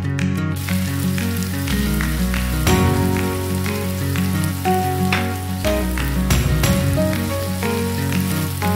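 Chopped onion, carrots and garlic frying in oil in a nonstick wok, a steady sizzle, under background music.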